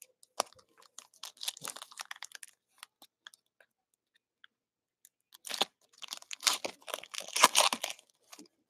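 Foil trading-card pack wrapper crinkling as it is handled and torn open. It comes in two bouts of crackling: a shorter, quieter one about a second in, then a louder, longer one from about five seconds in to near the end.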